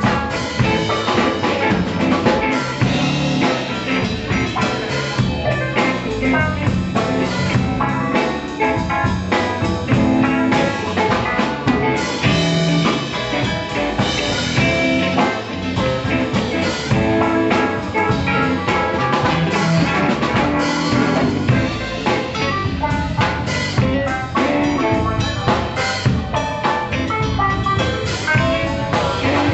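Live blues band playing an electric guitar, electric bass, keyboard and drum kit.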